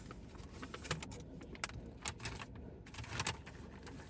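Chip bag crinkling and crackling in short, irregular bursts as chips are taken out of it.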